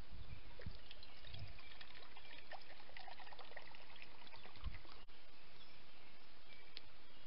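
Water poured from a canteen into a metal camp cup, trickling for a few seconds, with a wood campfire crackling throughout. A low thump about four and a half seconds in.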